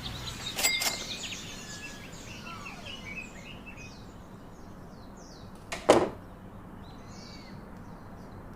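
Outdoor ambience with small birds chirping over and over in short high notes, a couple of sharp clicks about half a second in, and one loud thump about six seconds in.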